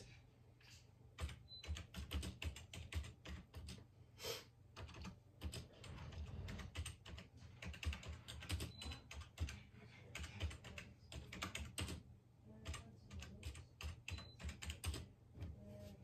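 Typing on a computer keyboard: quick, faint, irregular key clicks in runs, broken by short pauses.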